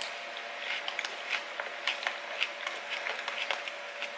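Chewing crunchy salad close to the microphone: irregular small crunches and clicks, several a second, over a faint steady hum.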